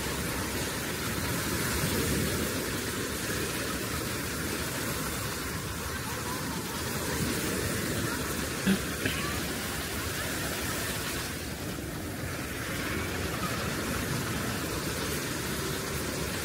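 Steady rushing noise of sea surf and wind on a beach, with one short knock about nine seconds in.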